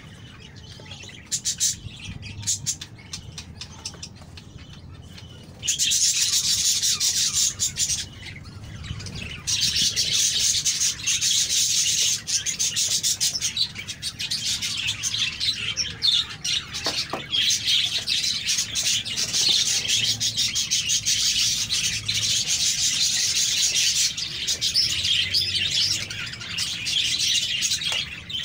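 Many small birds chirping in a dense, continuous chatter that starts abruptly about six seconds in, breaks off briefly, then carries on; before it, only faint scattered clicks.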